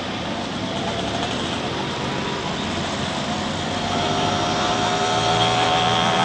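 Road traffic with small motorcycle engines passing; an engine hum grows louder in the second half as a motorcycle comes close.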